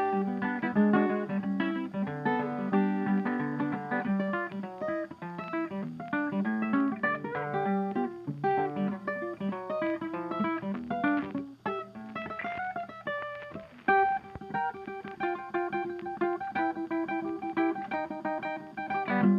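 Background music: an acoustic guitar plucking a quick, busy run of notes.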